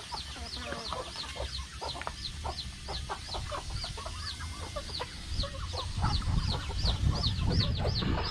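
Domestic chicks peeping steadily in high, falling cheeps, about three a second, while hens cluck lower among them. A low rumble joins in about six seconds in.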